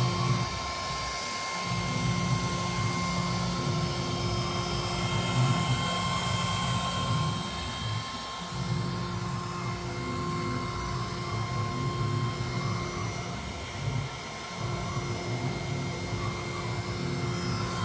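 AccTek CNC router engraving a picture into a sheet: the spindle gives a steady high whine over a rough low cutting noise. The low noise drops out briefly three times: about a second in, about eight seconds in and about fourteen seconds in.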